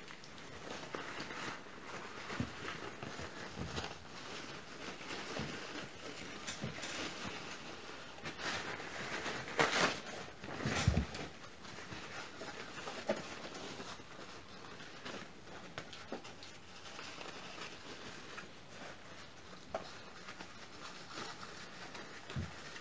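Tissue paper rustling and crinkling as it is unwrapped by hand, with a few louder crackles about halfway through.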